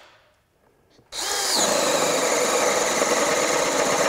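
Craftsman V20 brushless RP 1/2" hammer drill (CMCD732) on a 6 Ah battery, boring into a pine board with a 1.25 inch spade bit. It starts about a second in, its motor whine rising briefly as it spins up, then runs steadily as the bit chews through the wood.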